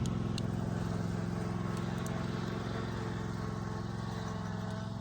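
Tractor engine running steadily at low speed, slowly growing fainter.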